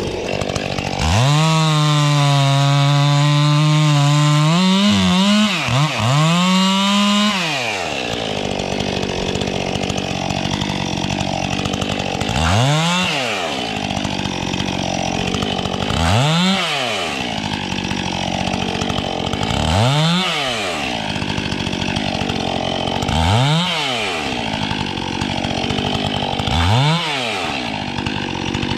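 Chainsaw engine held at high revs for about six seconds, dropping and picking back up twice near the end of that. It then settles to an idle, with a short blip of the throttle about every three and a half seconds, five in all.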